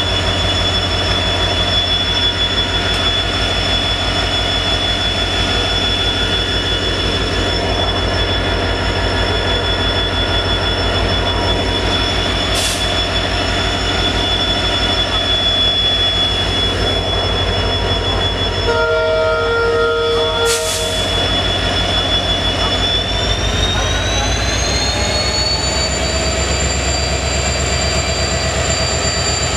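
WDP-4D diesel locomotive's 16-cylinder two-stroke EMD engine running under load as the train pulls out of the station, with a steady throb. About two-thirds of the way through, a horn sounds for about two seconds; soon after, the engine's pitch rises as it revs up.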